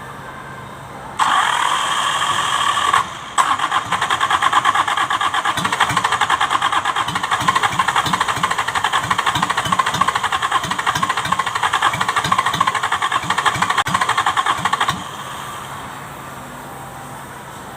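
Kubota V1501 four-cylinder diesel being cranked by its electric starter: a short try of about two seconds, then a longer crank of about twelve seconds with an even pulsing beat, stopping suddenly without the engine running on. The engine is hard-starting, with a stuck injection pump.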